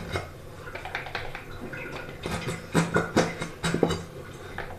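Squeezable plastic ketchup bottle being squeezed upside down, sputtering and squelching in short bursts with plastic clicks as thick sauce forces through its nozzle, most of it in the second half.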